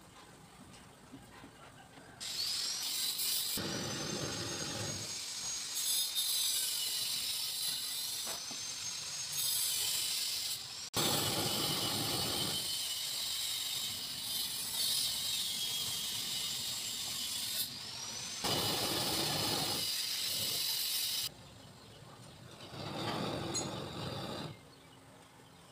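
Gas blowtorch flame hissing steadily as it heats and melts a plastic car bumper to embed metal mesh repair patches. The hiss starts about two seconds in and drops away near the end.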